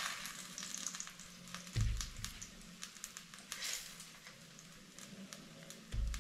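Chickpea-battered zucchini slices shallow-frying in a little oil: a steady sizzle with many small crackling pops. Two low thumps, about two seconds in and near the end, come from fried slices being set down on a paper-towel-lined plate.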